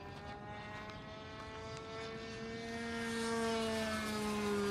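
Nitro glow-fuel engine of a radio-controlled model airplane buzzing steadily in flight overhead. It grows louder from about two seconds in, and its pitch drops slightly near the end as it passes.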